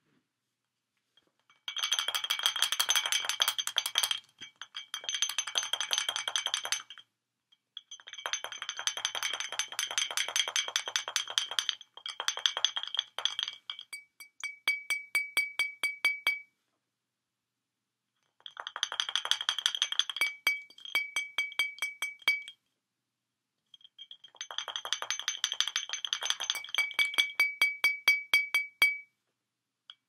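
A cockatoo tapping its beak rapidly against the neck of a glass wine bottle: runs of fast clinking with a ringing glass tone, in bursts of two to four seconds separated by short pauses. Some runs slow to separate taps near their ends.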